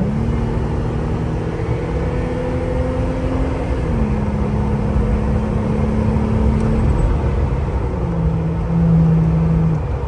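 Jeep Gladiator's 3.6-litre V6 through an AWE Trail Edition aftermarket exhaust, heard from inside the cab while accelerating hard after a downshift. The exhaust note climbs slowly, then drops in pitch as the automatic upshifts about four seconds in and again about eight seconds in, and eases off near the end.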